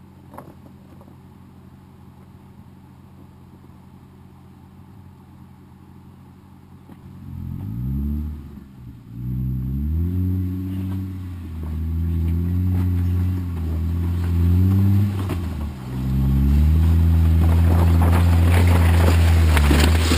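Jeep Wrangler JK's 3.6-litre V6 engine idling steadily, then from about seven seconds in revving up and down several times. In the last few seconds it holds a loud, steady higher speed.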